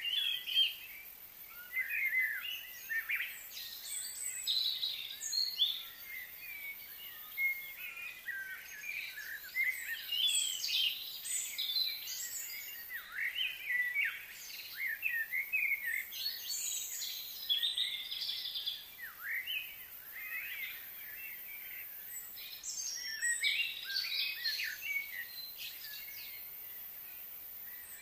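Wild birds chirping and singing, many short calls and quick sweeping notes overlapping, coming and going in clusters.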